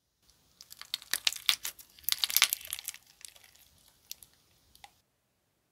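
Slime being squeezed and pressed by hand, giving a dense run of crackling clicks and pops that is thickest about two seconds in, then thins to a few single pops before stopping near the end.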